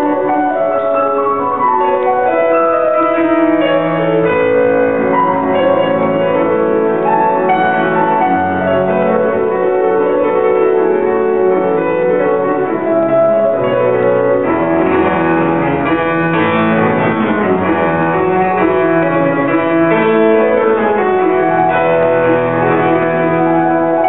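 Grand piano played solo, a continuous flowing passage of many notes at an even loudness, the upper notes growing busier midway through.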